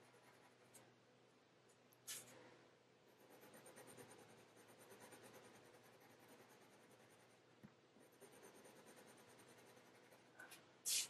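Faint scratching of a Faber-Castell Polychromos coloured pencil (ivory) on hot-press watercolour paper, laid down in quick small shading strokes. A short, louder rustle comes near the end.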